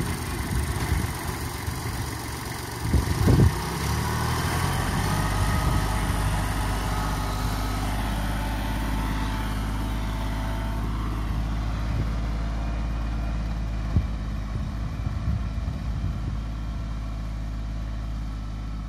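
Kubota GB200 compact tractor's engine running steadily as it pulls a potato ridger along the rows, with a couple of loud thumps about three seconds in and a single sharp knock later on. The engine grows slightly fainter toward the end as the tractor moves away.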